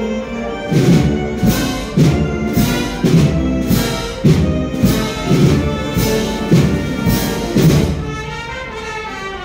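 Spanish wind band playing a processional march: sustained brass and woodwind chords over a steady drum beat, a little under two beats a second, easing off near the end.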